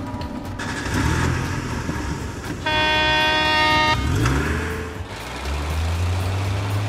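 Heavy truck sounds: an engine running, a horn honk of about a second and a half near the middle, then the engine revving up and settling into a low, steady rumble.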